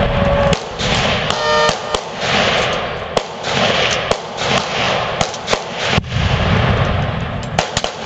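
Rifle gunfire from several shooters firing at once: a dozen or more sharp shots at irregular intervals, sometimes two close together, over a steady rush of noise.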